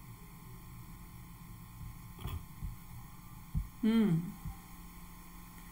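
Low steady hum under quiet room tone, with a few faint knocks and one short vocal sound falling in pitch about four seconds in.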